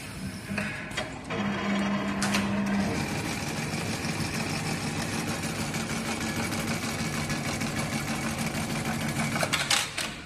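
Xingchi heavy-duty automatic sewing machine stitching a bag handle. The needle runs at a fast, even rate over a steady motor hum, starting about a second in and stopping near the end with a few sharp clicks.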